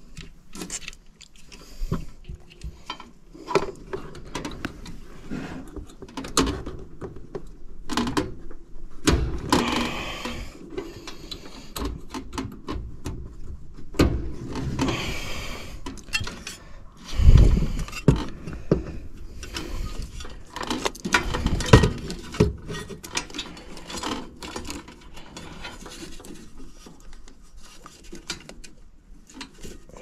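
Irregular clicks, light clanks and rustles of a breaker block on its sheet-metal mounting plate, and its wires, being handled and refitted inside an air handler cabinet, with one heavier thump a little past halfway.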